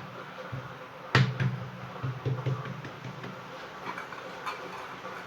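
Hands handling and folding buttered dough on a work surface. A sharp tap about a second in is the loudest sound, followed by a few lighter taps and clicks.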